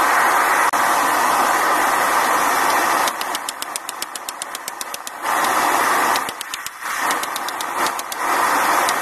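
Homemade forge running with a loud steady rushing noise, alternating with runs of rapid hammer blows on red-hot steel on an anvil, several strikes a second, as the large Allen wrench is drawn out into a knife blade. The forge noise fills the first three seconds and comes back twice, with hammering in between and again near the end.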